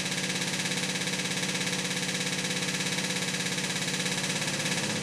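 Electric fuel pump ticking rapidly and steadily as it draws fuel through the inline filter to fill the empty carburettors.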